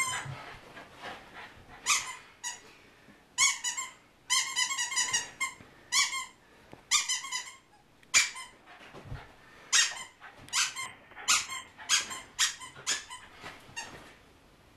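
Squeaky dog toy squeezed again and again: short, high squeaks, some single and some in quick runs.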